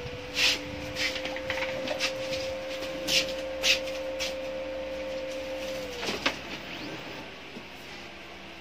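Brother laser printer's drive motor and gear train running through a cycle: a steady whine with a lower hum, punctuated by a few sharp mechanical clicks, winding down and stopping about six seconds in.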